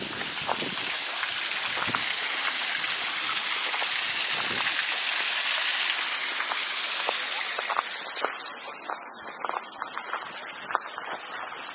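Steady rush of water from a small garden waterfall, fading after about six seconds, with light crunching footsteps on a gravel path.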